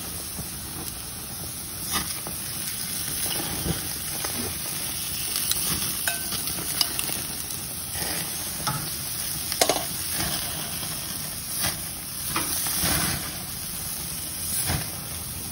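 Pork chops and vegetables sizzling steadily on a hot grill grate over open flames. A few sharp clicks and knocks break through as food is moved and placed with metal tongs.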